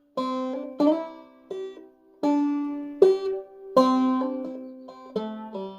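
Five-string banjo played clawhammer style in eCGCD tuning: a phrase of sharply plucked, ringing notes high up the neck, with a few loud struck notes and quicker notes between.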